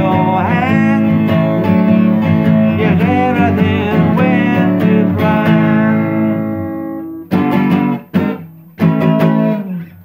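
A man singing to his own strummed acoustic guitar. The singing ends about halfway through, and the song closes on three last strummed chords that ring out and die away.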